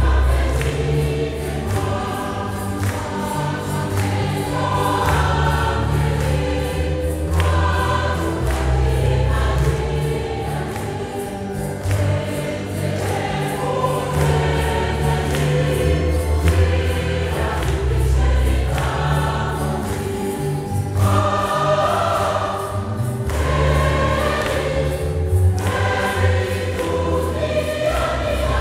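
Church choir singing the entrance hymn of a Mass, with deep bass notes underneath that change every second or so and a steady beat.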